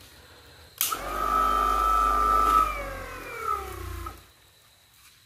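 Saker 12V cordless buffer/polisher switched on with a click. Its motor whines steadily for about two seconds, then slows with a falling pitch and stops about four seconds in as the battery goes dead.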